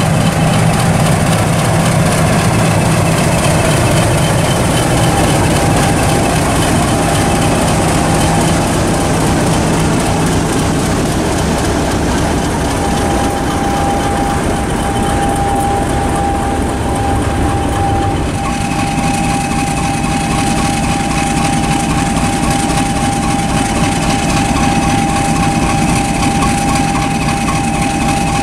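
British Rail Class 50 diesel locomotive's English Electric 16-cylinder engine running as the locomotive moves slowly along the line, with a steady high whine that grows stronger midway. The engine sound changes abruptly about two-thirds of the way in.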